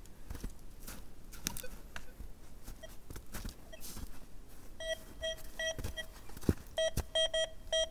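Soft footsteps and handling knocks, then from about five seconds in a metal detector giving a run of short, mid-pitched beeps in quick groups as its coil is swept over a buried target.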